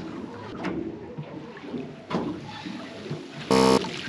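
Cast net being hauled up out of the water by its rope, with rope and mesh rubbing on the gunwale and water running off. About three and a half seconds in, a short, loud buzz cuts in and stops.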